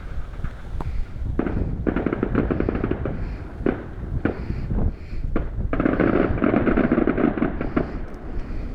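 Fireworks going off: single sharp bangs interspersed with two long volleys of rapid crackling, one about a second and a half in and a louder one from about six seconds in, over a low rumble.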